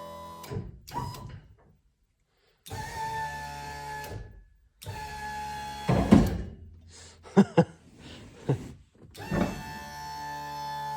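Background guitar music that drops out twice, with an electric plow lift-and-tilt motor running in short spells and several sharp clunks, two of them close together past the middle.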